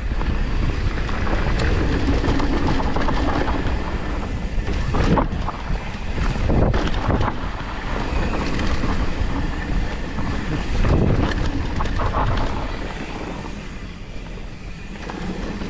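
Mountain bike rolling fast down a dirt singletrack, with wind rushing over the handlebar-mounted microphone and tyre noise on the dirt. A few sharp knocks and rattles come from the bike going over bumps, and it runs a little quieter near the end.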